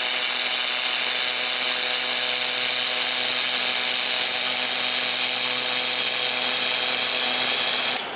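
Handheld fiber laser welder running continuously through an internal fillet weld: a loud, steady hiss with a faint whine of steady tones under it. It cuts off suddenly near the end as the weld stops.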